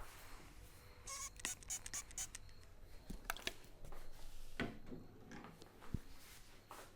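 Hands working over a person's head and neck during a head massage: an irregular run of short taps, clicks and rustles of skin and hair, with a sharper knock near the end.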